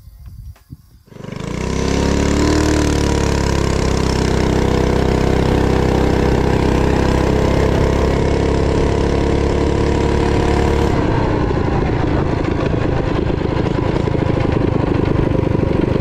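Harbor Freight Predator single-cylinder engine on a mini bike with a torque converter, coming in suddenly about a second in and revving up, then holding a steady high note at full throttle as the bike runs down the road. Near the end the clear engine note gives way to a rougher, noisier sound.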